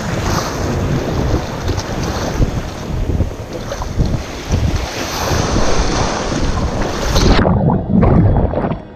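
Ocean whitewater washing around a surfboard being paddled out, with wind buffeting the action camera's microphone. About seven seconds in, the highs cut out abruptly and the sound turns muffled and rumbling as the camera goes under the water.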